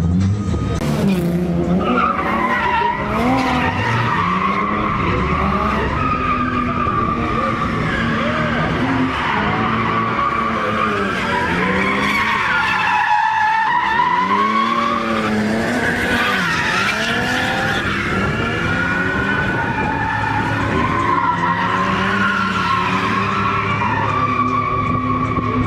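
Drift cars' engines revving up and down, with pitch rising and falling again and again, over tyre squeal.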